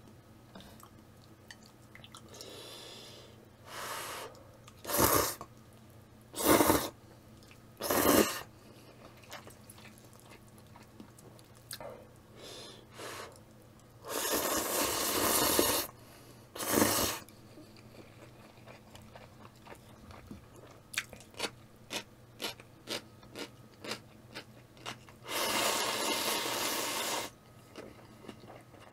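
A person eating thick ramen noodles: a few short slurps, a long slurp about halfway through, a run of quick wet chewing clicks, and another long slurp near the end as the bowl is raised to the mouth.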